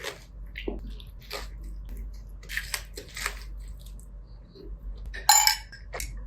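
Kitchen handling sounds: scattered light clicks, taps and scrapes of utensils and food being handled, with a louder rustle about five seconds in.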